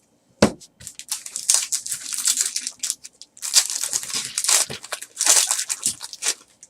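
A trading card pack wrapper being torn open and crinkled, in two long crackling stretches, with a short knock about half a second in.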